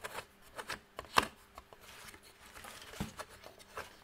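Handling noises: a series of irregular clicks and knocks with light rustling, the loudest knock about a second in.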